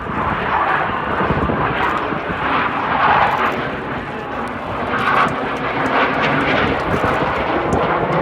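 Fixed-wing aircraft engine noise, loud and continuous, with a rough, crackly texture.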